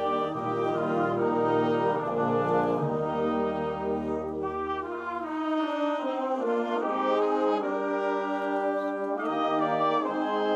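School band playing sustained brass chords. The low brass drops out about halfway through, and the higher voices carry on with chords that move every second or so.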